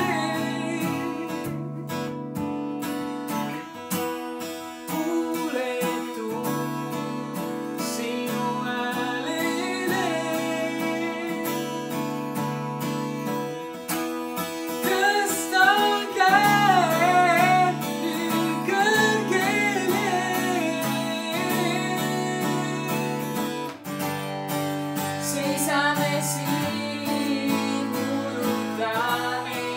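A woman singing to an acoustic guitar accompaniment. Her voice comes out loudest in a stretch about halfway through.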